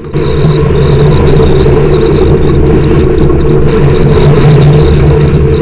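Strong wind buffeting the microphone as a loud, steady, low rumble.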